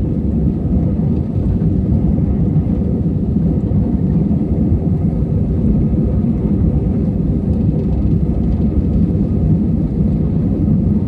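Steady low rumble of an airliner cabin, the engines and airflow droning evenly without change.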